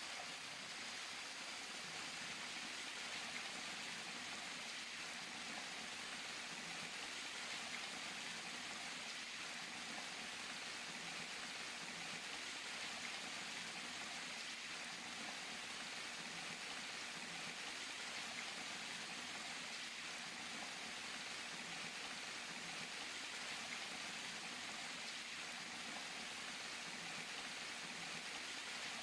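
Steady splashing of many streams of falling water running down a surface.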